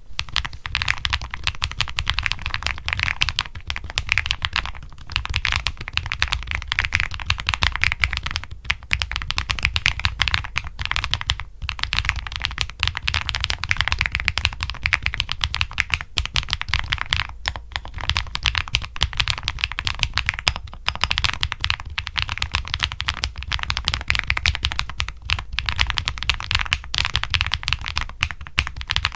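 Epomaker TIDE49 mechanical keyboard being typed on quickly and continuously: a dense run of key clicks, broken by a few short pauses.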